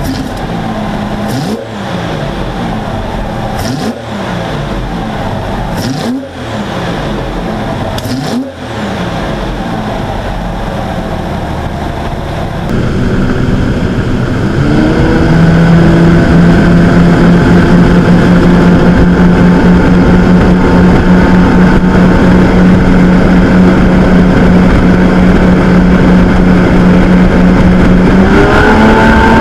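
Riva Aquarama Lamborghini's Lamborghini V12 engines revved in the open engine bay: four throttle blips about two seconds apart. Then the boat running fast: the engines climb and hold a steady high drone over rushing water, climbing again near the end.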